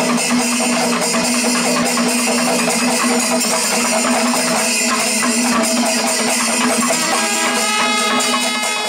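Panchavadyam temple ensemble playing: timila drums and ilathalam cymbals keep a dense, fast rhythm, and kombu horns come in on held notes near the end.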